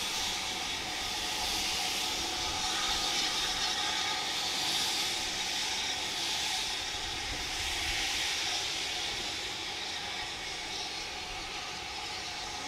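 Steam locomotive moving slowly away with a steady hiss of escaping steam.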